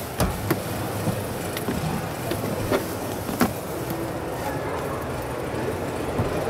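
Steady background din of a busy exhibition hall, with a few faint clicks and knocks scattered through it.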